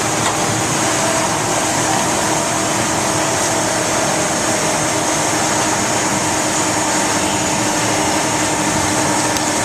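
Steady factory-floor machinery noise: an even hiss and hum with a few constant tones, unchanging throughout.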